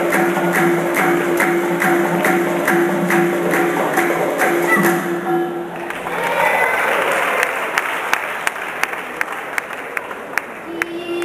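Dance music with a held note over an even beat of sharp claps, about three a second. About halfway through the note stops and applause rises while the claps keep the beat until near the end.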